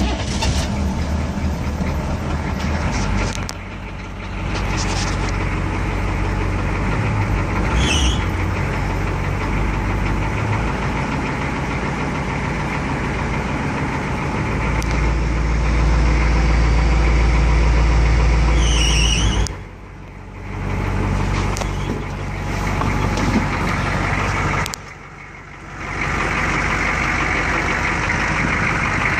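M1031 CUCV (1986 Chevrolet K30) 6.2-litre diesel V8 running at idle. Its sound dips briefly twice in the later part.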